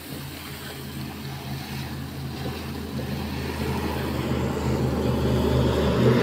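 Motor vehicle engine running with a steady low hum, growing steadily louder.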